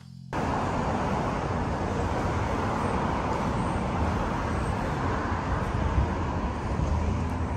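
Steady street traffic noise cutting in abruptly a moment in and holding evenly.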